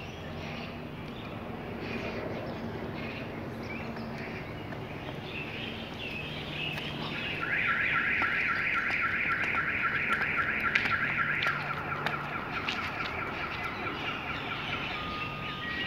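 A car alarm going off about halfway in: a fast, evenly pulsing warble for about four seconds, then steadier high tones.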